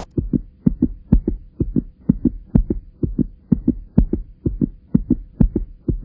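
Heartbeat sound effect: a steady run of paired lub-dub thuds, about two beats a second, over a faint steady hum.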